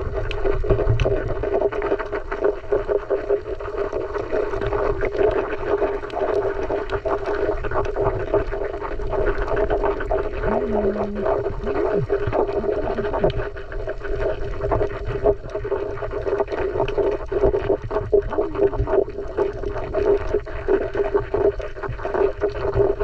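Underwater recording: a steady hum over a low rumble, with scattered faint clicks and a short low glide about ten seconds in.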